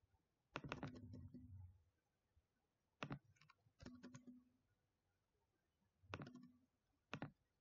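Faint clicking of a computer mouse and keyboard, in about five short clusters of quick clicks with pauses between them.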